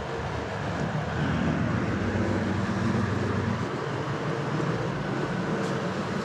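A ute's engine and tyres as it drives past on the street, loudest in the middle and dropping away after about three and a half seconds.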